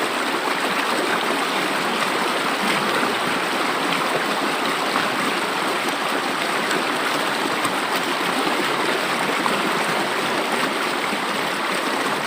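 River water flowing: a steady, even rush.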